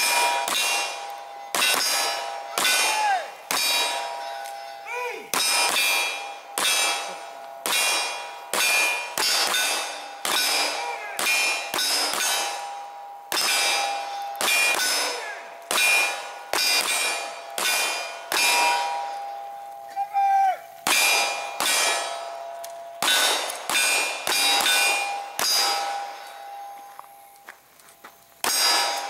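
A steady string of pistol shots on an outdoor range, about one a second, each followed by the ringing clang of a struck steel target. Two shooters are running a fire-and-move drill, with a short lull near the end.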